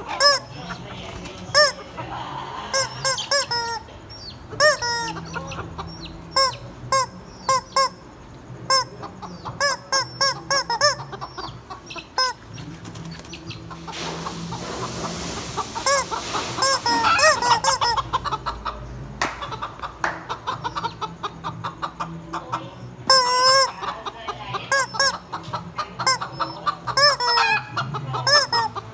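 Hens clucking over and over in short, repeated calls, with a stretch of rushing noise about halfway through.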